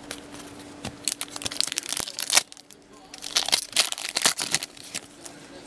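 Glossy hockey trading cards being flipped and slid against one another in the hands: two spells of crisp rustling and crackling.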